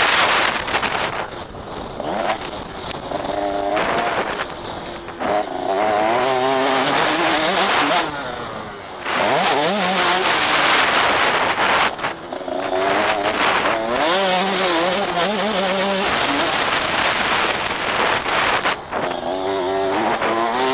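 KTM 85 SX two-stroke motocross engine revving hard as the bike is ridden over a dirt track, its pitch rising and falling again and again as the throttle opens and closes, with brief drops in level about eight and twelve seconds in. Wind rushing over the microphone sits under the engine throughout.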